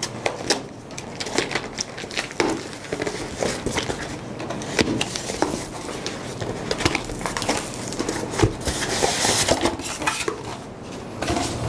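Cardboard box being opened by hand: a cutter slitting the packing tape, then the flaps scraping and creaking open, with many sharp clicks and crinkles. Near the end a packing sheet rustles as it is lifted out of the box.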